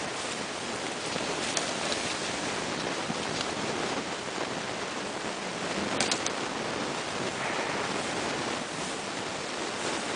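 Steady rushing noise of wind on the microphone, with a few sharp clicks scattered through it, the loudest a close pair about six seconds in.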